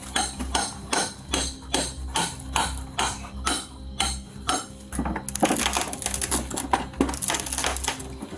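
Wooden boards of a shed being struck repeatedly, about two blows a second, then about three seconds of rapid cracking and splintering as the wood is broken apart.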